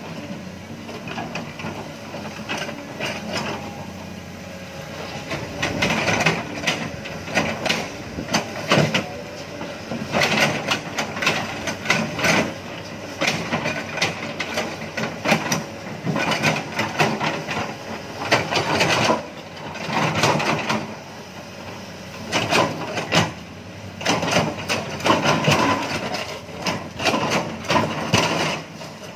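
Heavy machinery at work, most likely an excavator loading soil into a dump truck: a diesel engine runs steadily under repeated clanks, knocks and scraping clatter. The clatter comes in louder bursts every few seconds, from about six seconds in.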